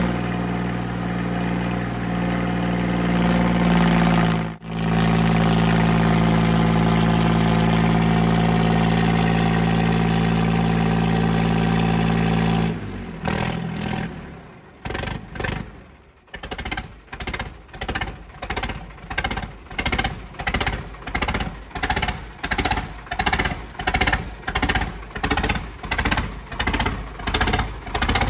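Sonalika DI 35 tractor's diesel engine running loud and steady, held at constant revs for a rear-tyre burnout, with a brief break about four and a half seconds in. About thirteen seconds in the engine sound gives way to a regular thumping beat of about one and a half pulses a second.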